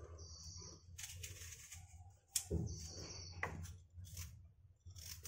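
Small kitchen knife cutting a raw carrot held in the hand: a handful of separate crisp cuts, over a low steady hum.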